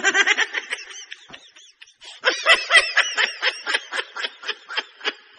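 Women laughing in rapid, high-pitched giggles, easing off about a second in and building up again about two seconds in.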